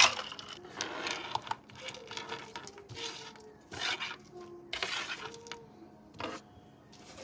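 Ice cubes and a metal scoop clinking against a tall plastic shaker cup of milk tea, with a handful of separate sharp clicks and knocks as the cup and loose ice are handled on the counter; the loudest knock comes right at the start.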